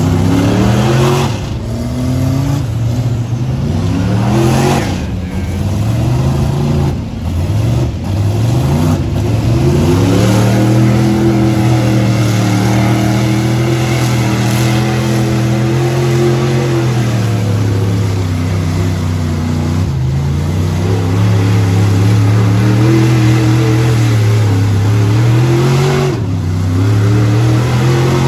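Lifted mud truck's engine revving hard as the truck churns through a deep mud pit. For the first several seconds it climbs in a run of short rising revs. It then holds high and fairly steady, with a couple of brief dips and climbs near the end.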